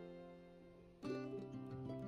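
Instrumental background music with plucked guitar notes. The notes die away, and a new chord comes in about a second in.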